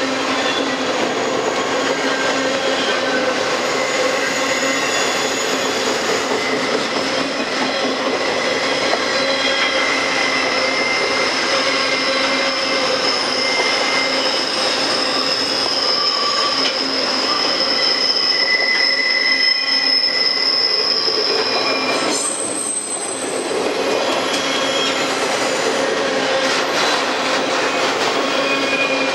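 Autorack cars of a freight train rolling steadily past, steel wheels on rail making a continuous rumble and clatter. Thin, drawn-out high-pitched wheel squeals rise and fade over it, and the noise dips briefly about three-quarters of the way through.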